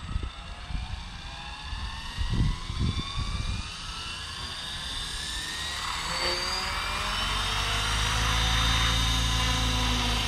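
Blade 700X electric RC helicopter spooling up on the ground: the motor and gear whine rises steadily in pitch as the rotor speeds up, and from about seven seconds in the rotor's low beating grows loud and steady. A few low thumps come in the first few seconds.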